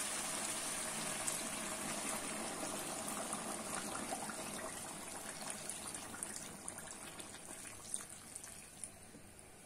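Boiled water poured in a steady stream into a hot kazan of frying duck, onion and carrot, splashing and filling the pot. The pour slowly fades, with scattered small crackles in the second half.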